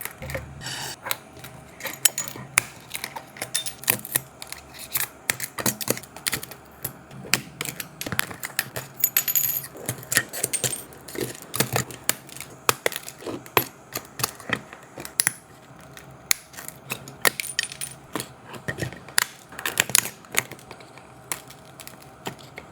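Irregular small clicks, taps and clinks, several a second, of hand tools working on an iPhone 16 Pro Max's cracked back glass.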